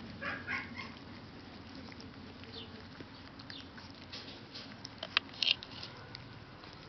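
Siberian husky puppies giving a few short, high squeaks in the first second, then light pattering with a handful of sharp clicks about five seconds in.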